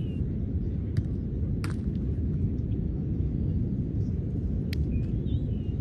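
A steady low rumble with three sharp knocks, about a second in, shortly after, and near the end.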